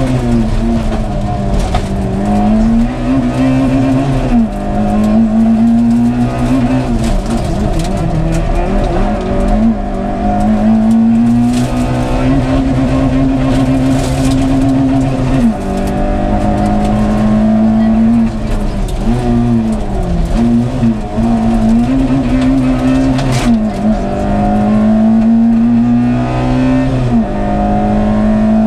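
Fiat SCS rally car's engine heard from inside the cabin at full stage pace, over road and tyre noise. The engine note climbs and holds at high revs, then drops sharply several times as the driver changes gear or lifts for corners.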